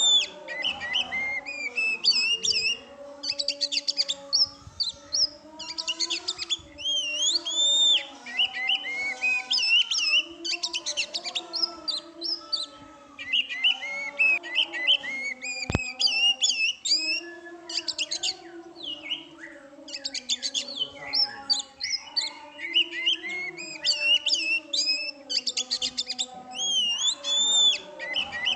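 Oriental magpie-robin (kacer) in full song: a near-continuous run of varied whistled phrases and chirps with quick sweeps in pitch, broken by short pauses.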